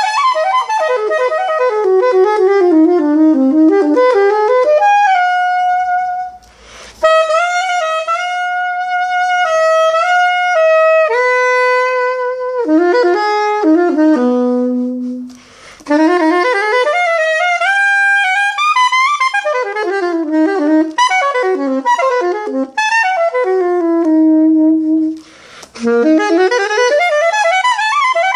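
Ripamonti soprano saxophone in rose copper played unaccompanied: melodic phrases of quick runs and held notes, broken three times by short pauses for breath.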